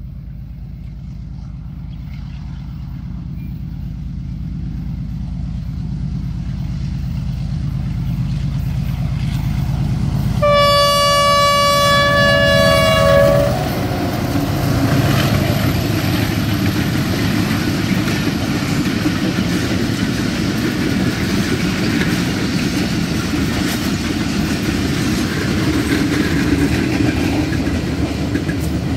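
A train approaching with a low engine rumble that grows steadily louder, sounding its horn in one blast of about three seconds roughly ten seconds in. It then passes, with the steady noise of its wagons rolling by.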